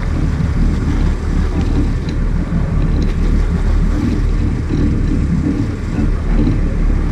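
Sport-fishing boat's engine running steadily, with wind on the microphone.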